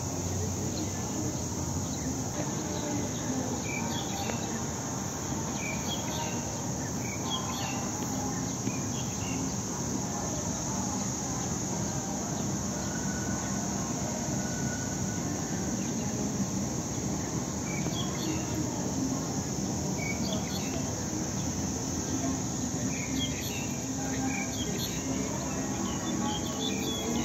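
Insects chirring in a continuous high-pitched drone, with short bird chirps scattered through it.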